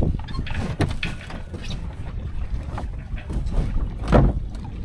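Sail and rigging being handled at the mast of a Windrider 17 trimaran: scattered clicks and rustles of lines and sailcloth over a steady low wind rumble on the microphone, with a louder thump about four seconds in.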